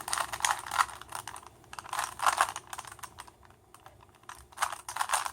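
Rubik's 3x3 cube being turned quickly by hand: a rapid string of plastic clicks and clacks as the layers snap round, thinning briefly a little past the middle before picking up again near the end.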